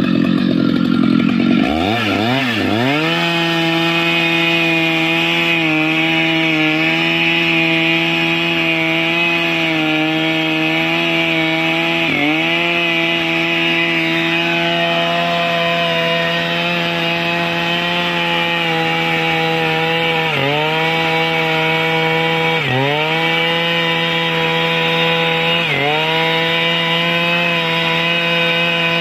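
Stihl MS 881 chainsaw at full throttle cutting mahogany. About two seconds in, the chain bites into the wood and the engine note drops to a steady, lower pitch under load. It sags briefly and recovers several times in the second half as the cut bogs it down.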